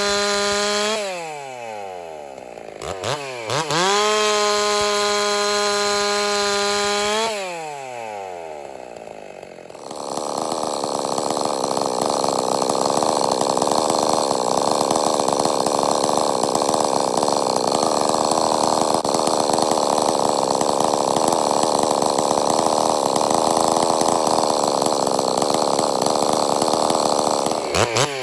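Ported 660-clone chainsaw revving at full throttle, dropping back toward idle, revving up again and dropping once more, then cutting through a log under load from about a third of the way in until near the end, when it comes out of the cut. This is a test cut with a new 28-inch bar and its factory-ground chain, rakers left unadjusted.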